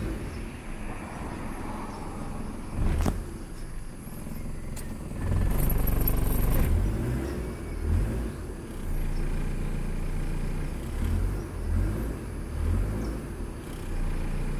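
Proton car's four-cylinder petrol engine idling, heard from inside the cabin, with no belt squeal: its air-conditioning compressor belt has just been tightened to cure the squeal. A click about three seconds in, and the engine runs louder for a second or two around the middle.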